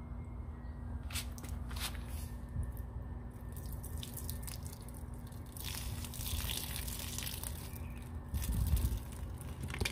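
Water trickling and dripping out of a pellet-pierced plastic water bottle onto concrete, while the thin plastic bottle crackles as it is squeezed and handled, loudest in the second half. A few sharp clicks come in the first two seconds.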